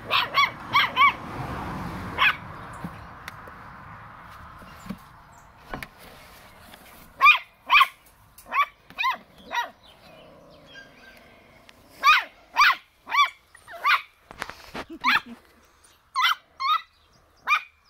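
Schnauzer puppies yapping: short, high-pitched barks in quick runs of three to five, with pauses of a second or more between the runs.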